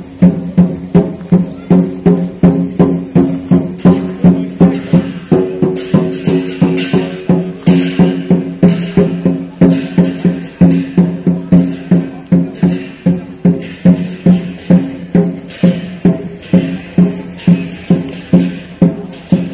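Chinese dragon-dance percussion: a drum beaten in a steady beat about two to three times a second, with cymbal crashes at times.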